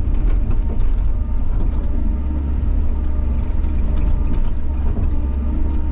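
Bobcat excavator's diesel engine running steadily under load, with scattered clunks and scrapes as the bucket breaks through frozen ground.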